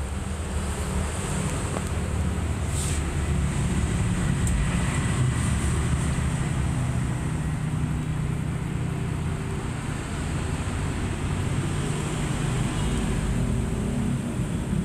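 Steady low background rumble with a faint high whine above it, and a brief hiss about three seconds in.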